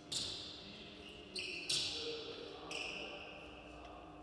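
Basketball practice in a large sports hall: four sharp sounds within about three seconds, each echoing briefly through the hall, the loudest a little under two seconds in.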